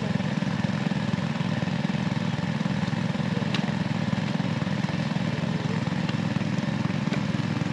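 A small engine running steadily at an even speed, with a low pulsing hum that does not change.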